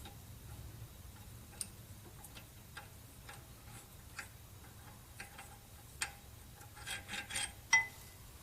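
Scattered light clicks and taps of hand tools and parts being handled, sparse at first and coming more often near the end, with one brief metallic ring.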